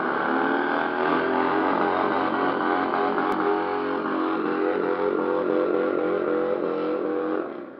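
Motorcycle engine running hard at steady high revs, then dropping away suddenly near the end.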